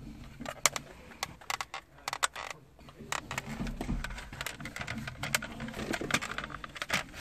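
Hard plastic clicking, knocking and rattling as a car's dashboard radio-housing frame and trim panel are handled and turned over, with many sharp clicks at uneven intervals.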